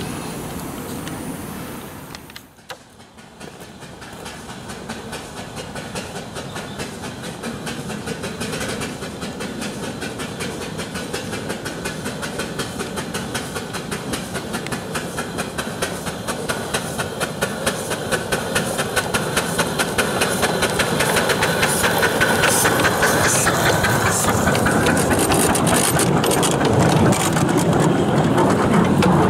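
7¼-inch gauge live-steam model of a GWR King class 4-6-0 locomotive running, with fast, even exhaust beats, hiss and wheel clatter that grow steadily louder.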